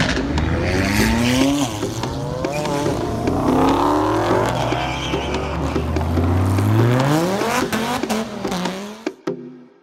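Dodge Challenger accelerating hard past, its engine revving up in several rising sweeps one after another. The sound fades out near the end.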